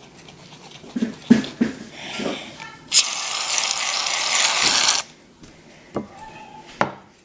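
An aerosol shaving cream can spraying in one steady hiss for about two seconds, cut off sharply. Knocks and clicks of handling come before it, and a few clicks follow.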